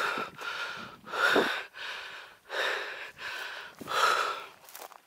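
A person breathing hard close to the microphone, with a loud breath about every second and a half and softer ones in between.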